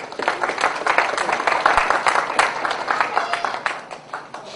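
Audience applauding: dense clapping that swells quickly and thins out near the end.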